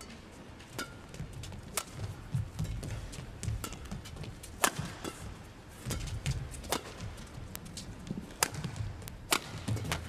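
Badminton rally: sharp cracks of rackets striking the shuttlecock, about one a second, with low thuds of the players' footwork on the court.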